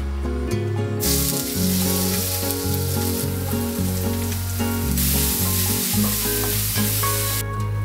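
Chopped chillies and minced garlic sizzling as they fry in hot oil in a stainless steel pan while being stirred with a wooden spatula. The sizzle starts about a second in and stops shortly before the end, over background music.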